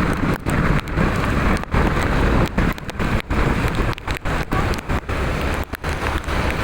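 Wind buffeting the microphone: a loud, rumbling rush that cuts out briefly many times.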